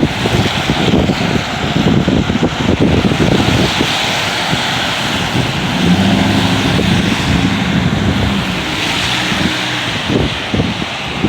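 Storm wind buffeting the microphone in rough, loud gusts, with a low hum rising under it in the middle for a few seconds.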